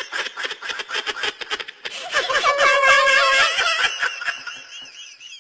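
Laughter: a quick run of snickering pulses, then a longer pitched, wavering laugh that fades near the end.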